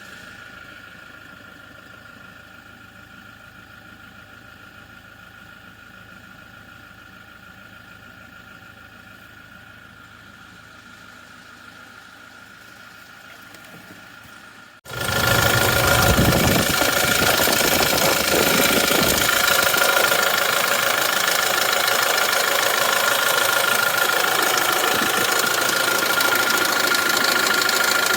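Toyota Hilux SR5 engine idling just after a cold start, with a metallic rattle from the timing chain area that the inspector flags as unusual but not a confirmed timing chain fault. About halfway through it becomes suddenly much louder and holds steady.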